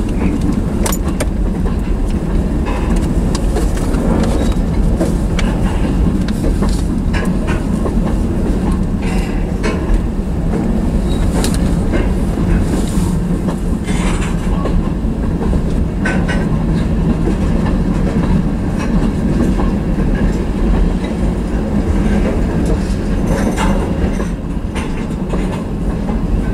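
Freight train cars, covered hoppers and a tank car, rolling past close by: a steady loud rumble of steel wheels on rail, with scattered sharp clicks of wheels over rail joints.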